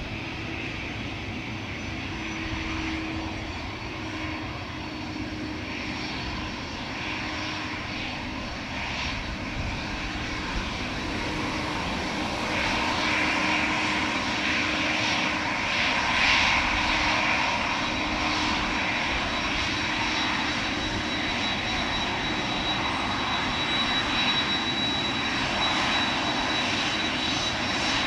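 Airliner engines running close by, growing steadily louder from about halfway through, with a thin high whine coming in during the second half.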